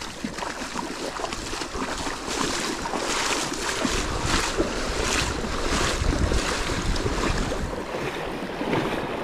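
Sea surf washing on the shore, with wind buffeting the microphone; the low wind rumble grows stronger about four seconds in.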